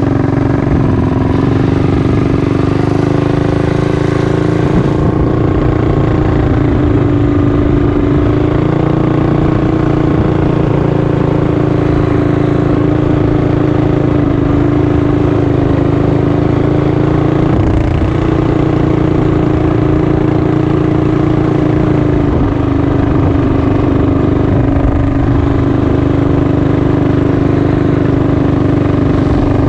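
Mini bike's small engine running at a steady speed under way, its pitch rising a little in the first second and then holding nearly level.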